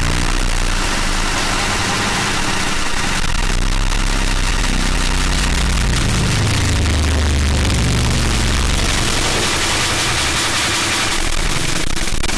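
Harsh noise music: a loud, unbroken wall of distorted noise, hissing across the top with shifting low rumbling tones underneath that swell about halfway through.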